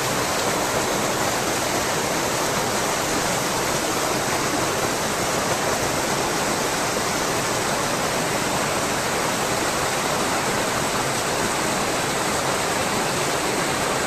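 Waterfall rushing: a loud, steady wash of falling water.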